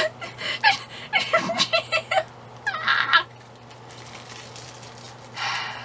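Plastic bubble wrap being squeezed and twisted in the hands. A quick run of small pops and squeaks over the first two seconds, another brief squeaky burst about three seconds in, and a soft rustle near the end.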